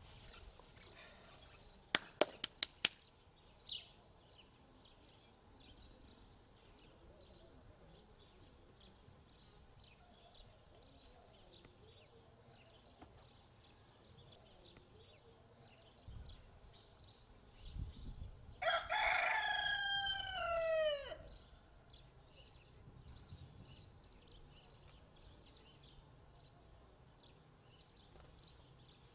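A rooster crowing once, a call of about two and a half seconds that drops in pitch at the end, about two-thirds of the way in. Near the start there is a quick run of sharp clicks.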